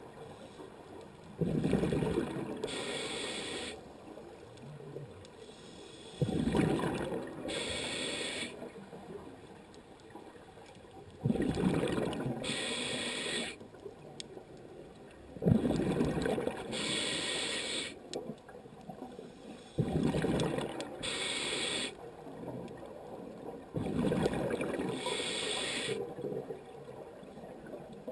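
Scuba diver breathing through a regulator underwater: a rumbling burst of exhaled bubbles alternating with the hiss of each inhale through the regulator, repeating about every four to five seconds.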